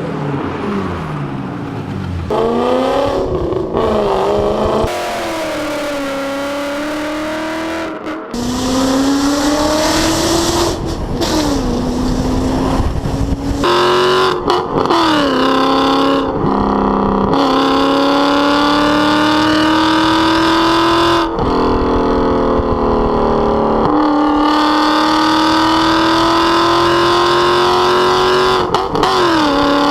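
BMW M60 V8 running through a straight-pipe exhaust with no mufflers, revving and pulling through the gears: the pitch climbs in long runs and drops back sharply several times, at each gear change.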